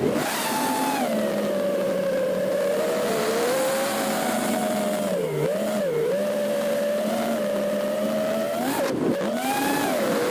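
FPV quadcopter's electric motors and propellers whining steadily. The pitch dips briefly twice around the middle, then drops sharply and climbs again near the end as the throttle changes.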